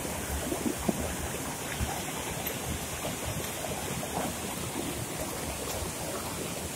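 A flooded mountain stream of muddy water rushing and tumbling over a stony ledge and across a gravel bed: a steady, even rush of water, with a few brief knocks in the first two seconds.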